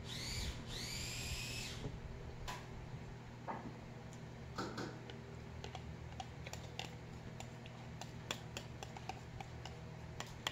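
Tableware clinking: a spoon and a ceramic bowl tapping against a plate in a scatter of short, sharp clicks as food is scraped out of the upturned bowl onto rice. In the first two seconds, two high whistle-like calls that rise and then hold; a steady low hum runs underneath.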